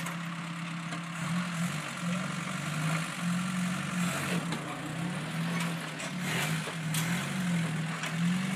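Willys flat-fender jeep engine working under load as it crawls up a steep rock ledge. From about a second in, its pitch rises and falls over and over as the throttle is worked. A few sharp clicks come through.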